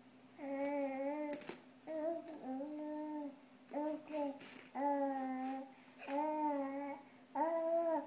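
A baby vocalising in long, drawn-out vowel sounds, about seven of them with short pauses between, sing-song babbling. A short knock comes about a second and a half in.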